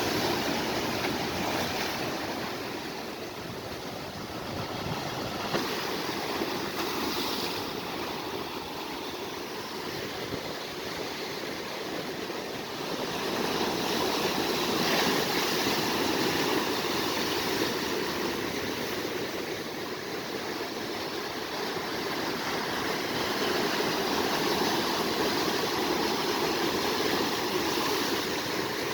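Sea waves washing in on the shore: a steady rushing noise that swells and eases every several seconds.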